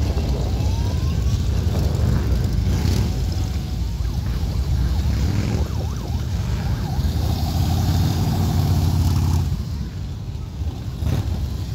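A procession of motorcycles, many of them Harley-Davidson V-twins, rides past one after another at low speed, their engines making a continuous low rumble that swells as each bike goes by. A steady tone is held for about two seconds past the middle.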